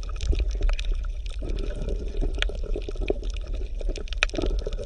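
Aquarium water bubbling and gurgling: many small irregular pops over a steady low rumble.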